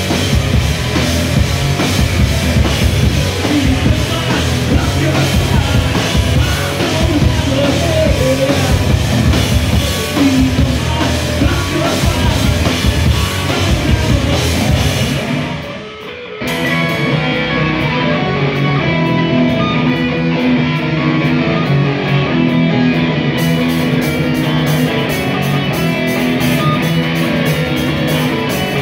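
Live rock band playing electric guitars over a drum kit. A little over halfway through the music breaks off briefly, then comes back in without cymbals, and steady cymbal strokes rejoin a few seconds later.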